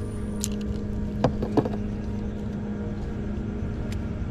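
Steady low hum of a motor running, with a few short sharp clicks in the first two seconds.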